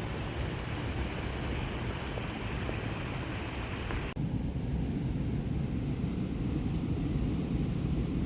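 Wind rumbling on the microphone over the steady hiss of surf on a beach. About four seconds in the sound changes abruptly: the hiss drops away and the low wind rumble gets stronger.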